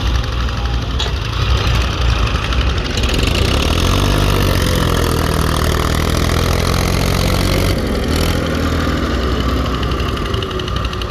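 Diesel engine running steadily. Its revs rise about three seconds in, hold for several seconds, then drop back near eight seconds.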